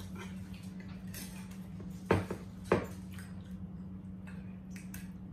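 Forks clinking and scraping on dinner plates during a meal, with two louder knocks about two seconds in, over a steady low hum.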